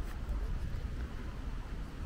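Outdoor street ambience: a steady low rumble with a faint even hiss above it, with no distinct events.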